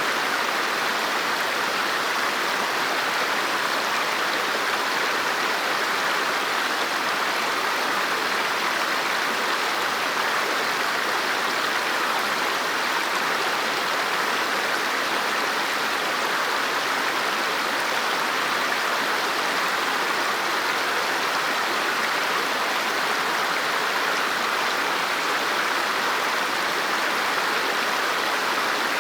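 River water flowing steadily over rocks: a constant rushing with no breaks.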